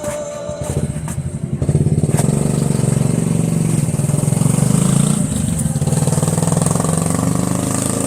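Small motorcycle engine running, growing louder over the first two seconds and then holding a steady note.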